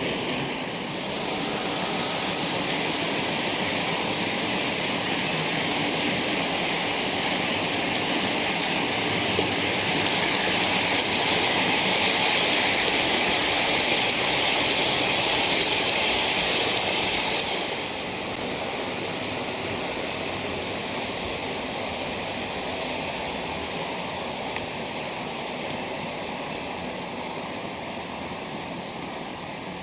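OO gauge model freight train, a rake of PVC cement tank wagons behind a Class 27 diesel, rolling along the track: a steady rushing rumble of small wheels on rail. It grows louder for several seconds around the middle as the wagons pass close by, drops off fairly suddenly, then fades slowly.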